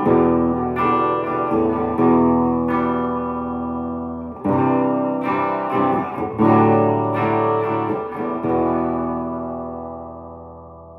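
1960s Höfner Verithin thinline electric guitar strumming chords, each one ringing on. A last chord is left to ring and fade slowly near the end.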